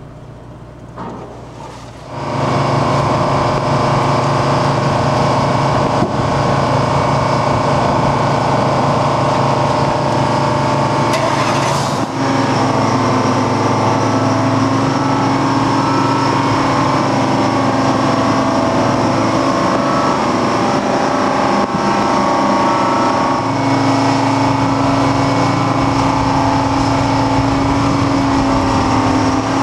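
Diesel engine of a marine travel lift running steadily as the lift carries a tugboat in its slings. It comes in loudly about two seconds in, and its tone shifts slightly about halfway through.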